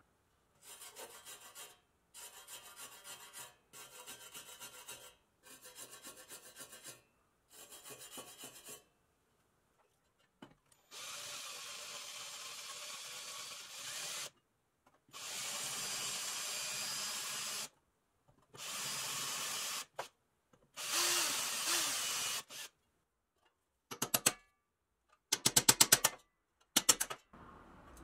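Power drill with a twist bit drilling out rivets in a toy truck's pressed-steel frame, running in four separate bursts of a few seconds each. It is preceded by five short runs of rhythmic scraping on the metal and followed by a few short rattling clicks.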